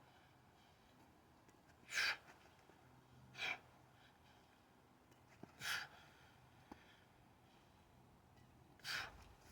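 A man's sharp, forceful breaths, four of them a second or two apart, from the effort of juggling a kettlebell overhead. Two faint clicks come between them.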